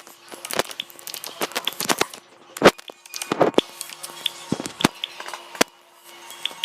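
A string of irregular sharp clicks and taps, some with a brief high ping.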